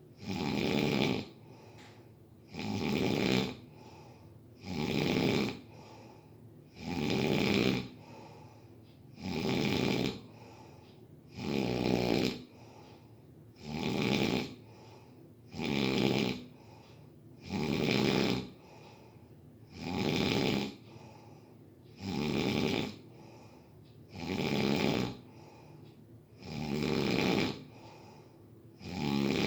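Steady, regular snoring, one snore about every two seconds.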